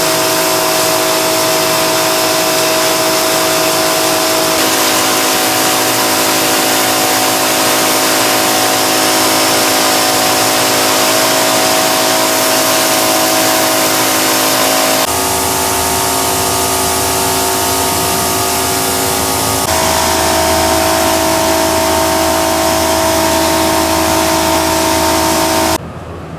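Electric pressure washer running: a steady motor and pump whine under the loud hiss of the high-pressure water jet spraying. The whine shifts abruptly in pitch three times and cuts off near the end.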